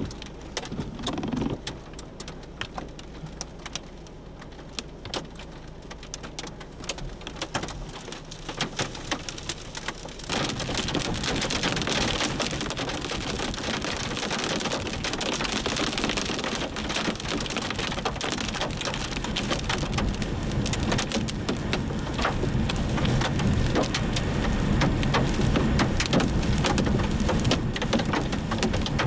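Rain falling hard, with many sharp drops ticking; it becomes much heavier and louder about ten seconds in.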